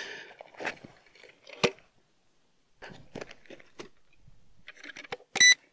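Footsteps crunching on dry, sandy ground and handling of a foam RC plane being picked up, with a sharp click about a second and a half in. Near the end comes one short, high electronic beep as the flight mode is switched to vertical takeoff.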